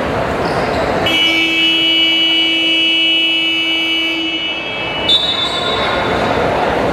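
Basketball game buzzer sounding one long, steady electronic tone for about four seconds over the crowd noise of a large hall. It cuts off with a click, and a thinner, higher tone follows.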